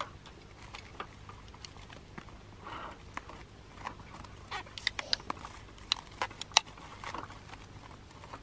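Scattered light clicks, taps and rustles of things being handled on a camp table, thickest in the second half, with one sharper tap about two-thirds of the way through.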